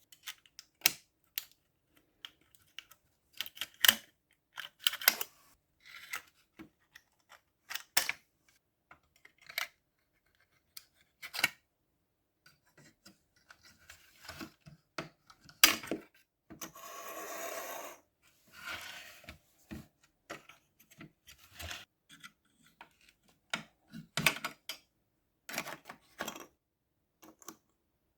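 Tools and car parts being handled during repair work: scattered clicks, clinks and knocks at irregular intervals, with a steady hissing noise of about a second and a half just past the middle.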